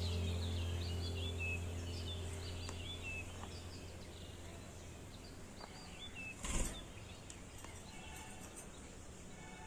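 Small pet birds chirping, many short quick calls that thin out after the first few seconds, over a steady low hum that fades away. A single knock about six and a half seconds in.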